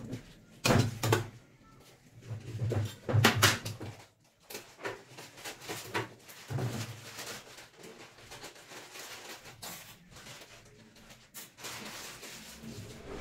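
Irregular scrapes and knocks of a metal palette knife against the cake turntable and the bowl of cream, loudest about a second in and again at about three seconds.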